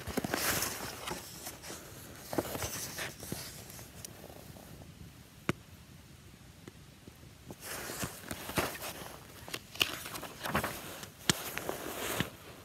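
Faint, irregular rustling and handling noise as a paperback picture book is held up, moved and turned back, with a few small clicks.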